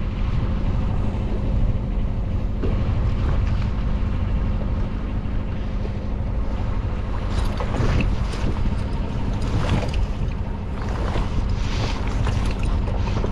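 Sailboat's auxiliary engine running steadily under way, under wind buffeting the microphone, with the loose sail fluttering and rustling irregularly in the second half.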